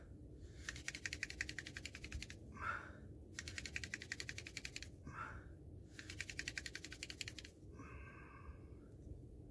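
Hand drill spun between the palms on a chaga-fungus hearth to make a friction fire: three bouts of fast, rhythmic rubbing of the plant-stalk drill, with a short breath in each pause between bouts.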